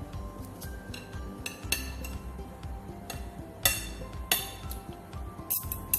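Metal spoon and fork clinking and scraping against a plate during a meal, several sharp clinks, the loudest about three and a half and four and a half seconds in and a quick cluster near the end. Soft background music plays underneath.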